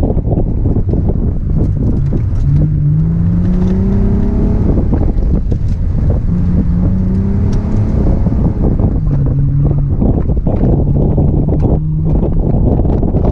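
New Edge V6 Ford Mustang's 3.8-litre V6 being driven hard through an autocross course. The engine rises in pitch as it accelerates and drops as the throttle comes off, twice over, then holds steadier. Heard from inside the open-top cabin, with heavy wind buffeting the microphone throughout.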